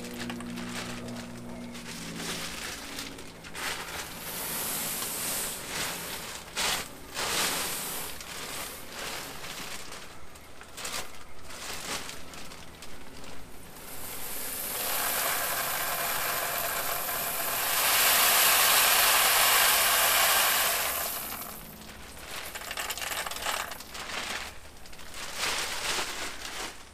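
Filter biomedia being poured from a plastic bag into an Ultima II pond filter canister: the bag crinkling and loose media pieces clattering into the tank, building to a steady pouring rush from about 14 to 21 seconds in.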